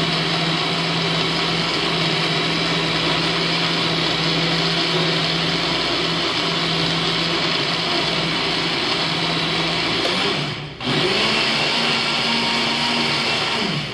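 Electric countertop blender motor running steadily on a liquid mixture with a loud hum. About three-quarters of the way through it cuts out for a moment, restarts at a slightly higher pitch, then winds down with a falling pitch at the end.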